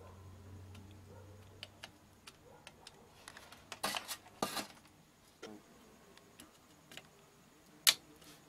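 Small clicks and handling noises of tools and component leads on a circuit board during soldering work, with two louder rustling bursts about four seconds in and one sharp, loud click near the end.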